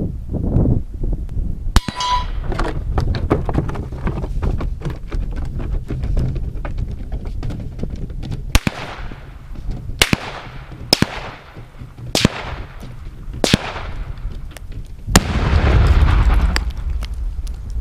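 Six rifle shots, spaced unevenly, then a much bigger and longer explosion near the end as about 6 pounds of tannerite inside a 40-inch wooden cable spool is hit and detonates. A steady low rumble runs underneath.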